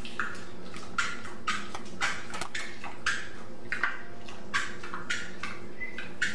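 A small black pet pig sniffing and snuffling as it roots with its snout in a pile of blankets: short breathy snorts, irregular, about two a second.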